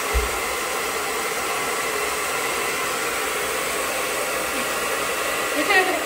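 Hair dryer blowing steadily, holding a ping-pong ball up in its air stream. A brief low bump just after the start.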